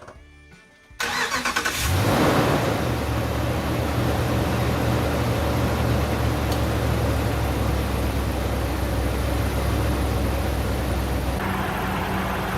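Gen 3 HEMI V8 in a Ram 2500 Power Wagon cranked and catching about a second in, then idling steadily; its note shifts near the end. It runs smoothly on new spark plugs, the misfire traced to plugs that had been left hand-tight.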